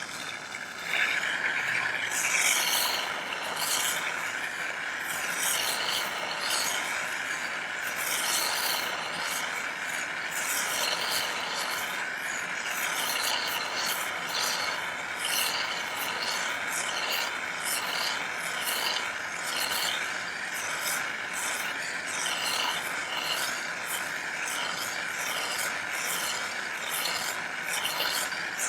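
Gas torch flame hissing steadily as it anneals sterling silver wire, starting about a second in, with a light uneven flutter.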